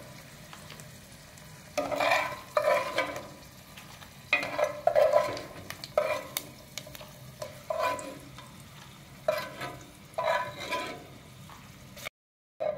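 A spoon scraping and stirring in an earthenware cazuela of hot oil as fried dried chiles and garlic are scooped out, in short bursts every second or so over a faint steady sizzle. The sound cuts out briefly near the end.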